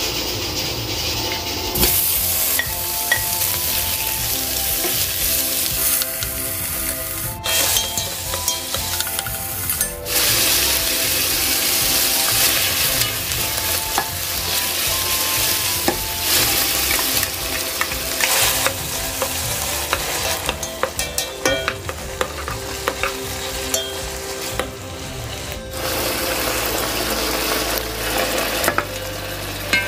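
Chunks of pork shoulder sizzling as they fry in oil in a pot, stirred and pushed around with a wooden spatula. The sizzle breaks off abruptly a few times.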